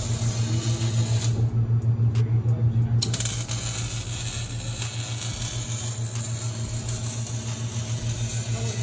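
Welder buzzing steadily while laying a weld bead, a low hum that pulses quickly and evenly.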